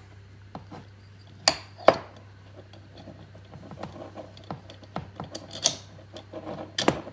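Small steel parts clinking and tapping as a bolt and sleeve spacers are worked into a ratchet strap's frame and bolt-on hook. A few sharper metal clacks come about a second and a half and two seconds in, and again near the end, with lighter ticks between them.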